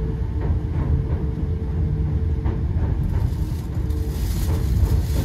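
Steady low rumble of a moving train, heard from inside the carriage, with a faint held hum over it.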